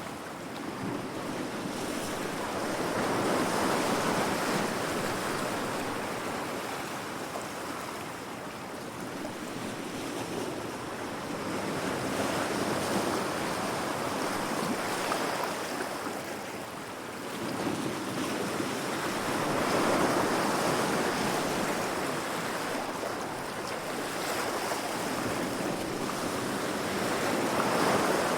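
Ocean waves crashing against rocks, a continuous surf that swells and eases in slow surges every several seconds.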